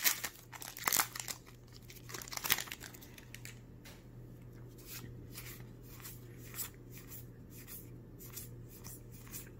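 A Magic: The Gathering booster pack's foil wrapper crinkles and tears over the first few seconds. Then come soft, regular flicks, two or three a second, as the cards are leafed through one by one.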